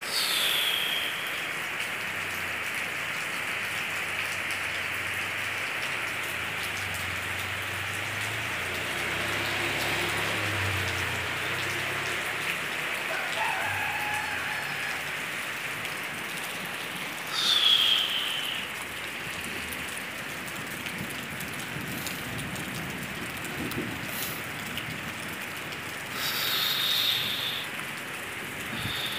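Steady hiss of heavy rain and rushing floodwater from a river overflowing its banks, with a couple of brief louder swells a little past halfway and again near the end.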